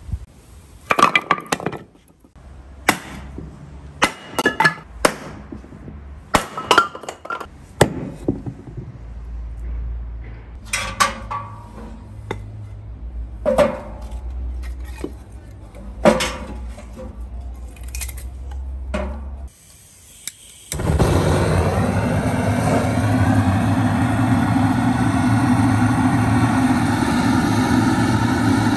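Pine boards being split and broken into kindling with an axe: a series of sharp cracks and knocks, some ringing briefly. About 21 seconds in, a loud, steady rush of fire burning the kindling in the stove's firebox takes over.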